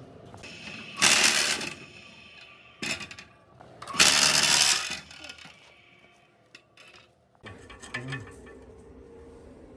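Metal parts clinking and rattling in two loud bursts, about a second in and again about four seconds in, with scattered lighter clicks and a brief clatter near the end.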